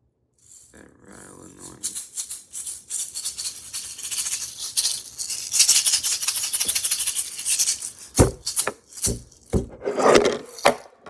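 Small plastic skull-shaped shaker rattled by hand, starting softly and building into fast, steady shaking for several seconds. Near the end come a few heavy knocks and handling noise as the camera is grabbed and moved.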